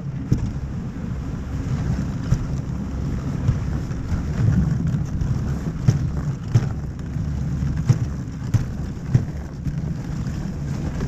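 Dog sled gliding over a packed snow trail: a steady low rumble from the runners and sled frame, broken by several sharp knocks as the sled jolts over bumps.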